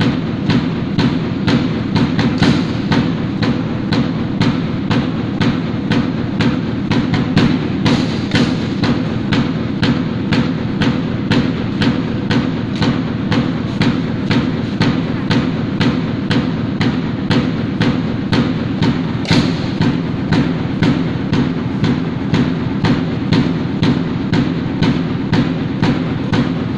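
Percussion music with a steady drum beat, about two strokes a second, played as the accompaniment to a rifle drill routine.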